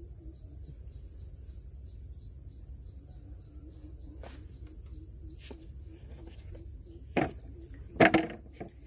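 Steady high-pitched drone of crickets and other insects, with a quieter low chirp repeating rapidly underneath. Near the end come two sharp knocks, the second the loudest.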